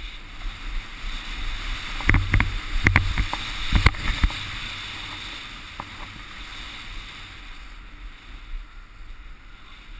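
Snowboard sliding over snow, a steady hiss with wind rumbling on the camera microphone. Between about two and four seconds in there is a quick run of sharp knocks and scrapes, the loudest sounds, as the board chatters over rough snow.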